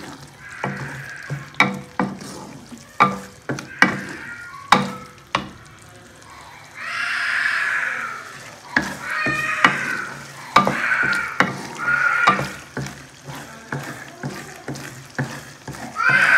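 Wooden spoon stirring bell-pepper keema in a metal pot, knocking sharply against the pot's side again and again. Between the knocks come stretches of scraping and sizzling from the frying mixture, the longest about seven seconds in.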